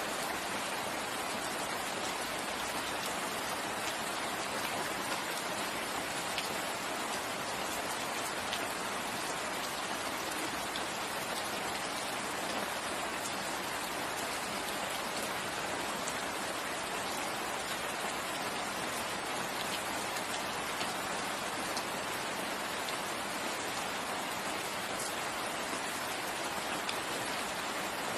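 Steady rain falling on foliage, an even hiss with scattered drop ticks.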